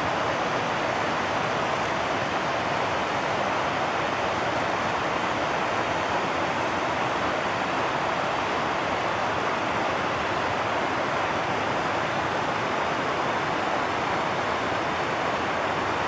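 A fast mountain stream rushing over rocks: a loud, steady, even rush of water.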